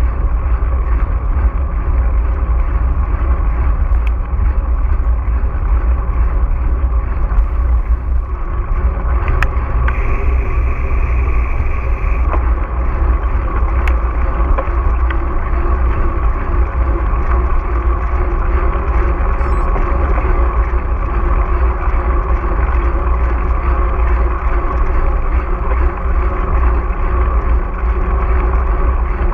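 Steady, heavy low rumble of riding noise from a mountain bike, wind and trail vibration on a GoPro Hero4's microphone, muffled above the low end. A brief higher squeak comes about ten seconds in.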